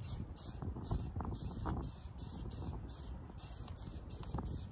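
Faint spraying hiss and rubbing as a small scooter wheel is sprayed with cleaner and wiped by hand, over a low, steady rumble.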